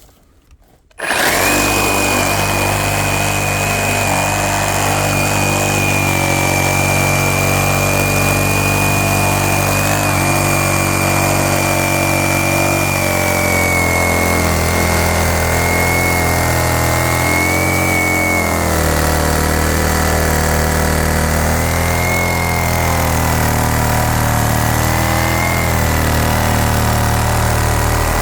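Metabo 36V cordless reciprocating saw starting about a second in and running continuously as its 12-inch pruning blade cuts through a good-sized piece of wood. Its steady high motor whine dips slightly in pitch partway through.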